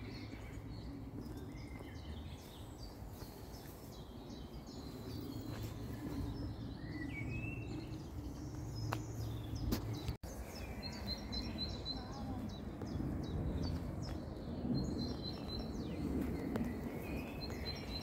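Outdoor ambience: a steady low rumble with several small birds chirping and twittering throughout. The sound drops out for a split second about ten seconds in.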